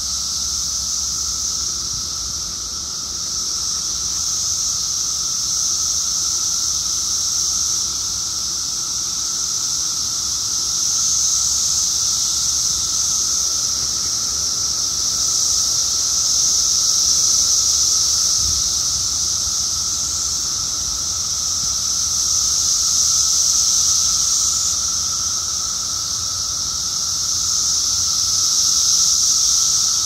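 Dense chorus of Brood X periodical cicadas: a loud, continuous high-pitched buzzing that swells and fades in slow waves every five or six seconds, over a fainter, lower steady drone.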